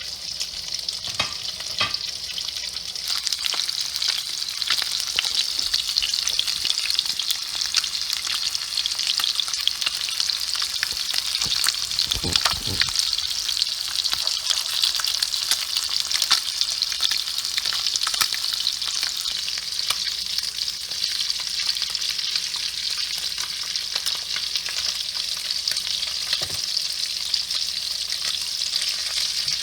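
Breaded fish fillets frying in a pan of hot oil: a steady sizzle full of small crackles and pops, with a brief louder knock about twelve seconds in.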